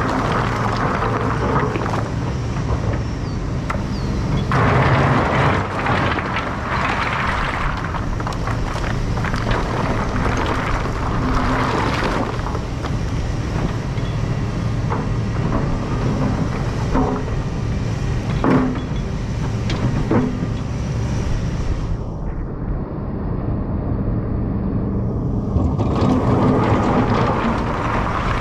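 Takeuchi compact excavator's diesel engine running steadily while the bucket digs and scrapes through riprap stone, with several sharp knocks of rock against steel.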